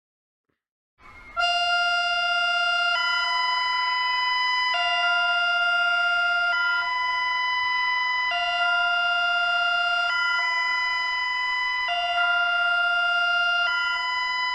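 Electronic emergency alert tone: steady chords of several pure pitches that alternate high–low between two settings about every two seconds, starting about a second in after a short silence.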